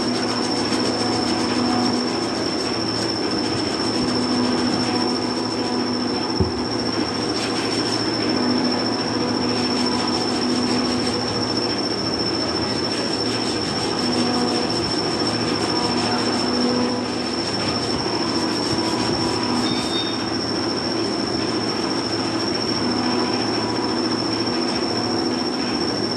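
Hand sanding of the welded crack on an aluminium alloy wheel rim with an abrasive pad, over a steady high-pitched whine and hum of shop machinery running throughout. There is a single knock about six and a half seconds in.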